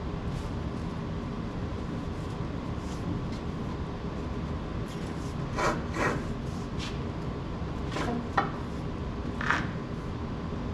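A few short metallic scrapes and knocks of hand work on a tractor's steering tie rod, with one sharp click a little past the middle, over a steady low hum.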